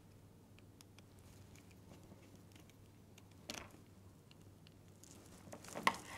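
Faint handling sounds of a small screwdriver tightening a wire terminal screw in a plastic inline cable connector: scattered light ticks and a short scrape. A few louder clicks and knocks come near the end as the connector is handled.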